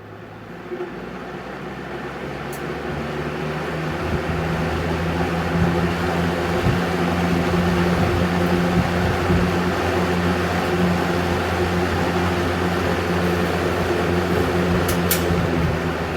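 Vintage Lasko Aqua metal box fan spinning up after being switched on, its motor hum and air rush rising over several seconds, then running at a steady speed. There are a couple of faint clicks.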